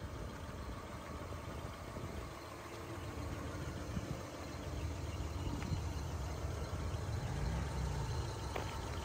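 The 1978 Cadillac Coupe DeVille's 425 V8 idling with a steady low rumble.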